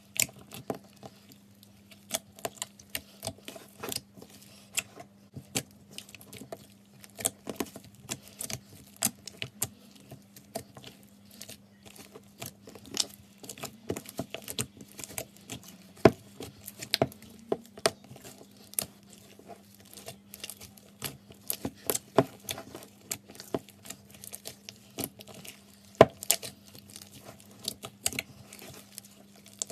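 Slime being squished and worked by hand, giving an irregular run of sharp clicks and pops of varying loudness, over a faint steady hum.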